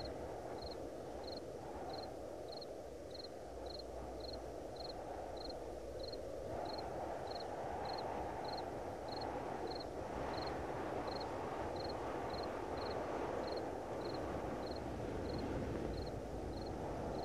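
Sci-fi ambient sound design: a steady low rumbling drone of spaceship-type noise, with a short high-pitched chirp repeating about every 0.6 seconds over it. The drone thickens about six seconds in.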